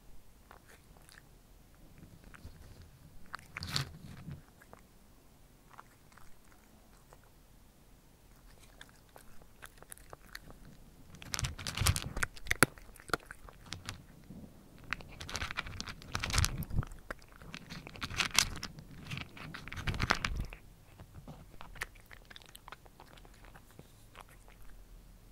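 A cat crunching dry kibble close to the microphone, chewing in bursts with short pauses. It is sparse at first, heaviest through the middle, and stops a few seconds before the end.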